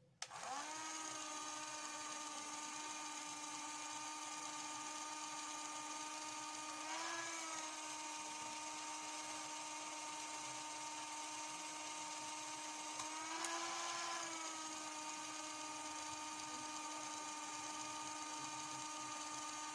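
CD Doctor disc-repair machine switched on with a click, its motor then running with a steady whine as it spins the disc against its repair pads. The pitch rises briefly about seven seconds in and again near fourteen seconds.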